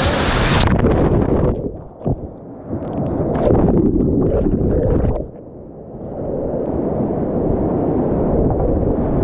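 Whitewater rapid rushing past a kayak-mounted camera, which is plunged underwater: after about half a second the sound turns muffled and gurgling, with two quieter moments under the surface. The dull rushing of the rapid comes back near the end as the camera surfaces.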